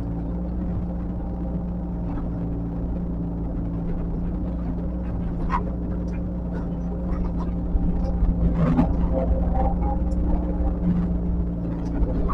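Diesel engine of heavy earthmoving machinery running steadily, with metallic clanks and knocks from about halfway through; it gets louder in the second half.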